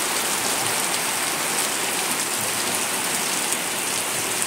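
Heavy rain falling steadily: a dense, even hiss of drops that stays constant throughout.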